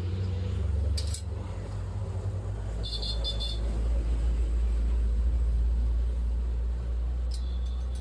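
A steady low rumble that swells in the middle, with short bursts of high chirping about three seconds in and again near the end, and a single click about a second in.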